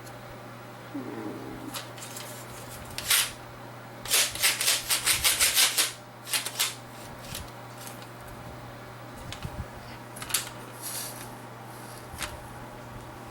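Handling noise from the parts of an old IDE CD-ROM drive being worked on: scattered scrapes and clicks, with a quick run of about ten rasping strokes near the middle. A steady low electrical hum runs underneath.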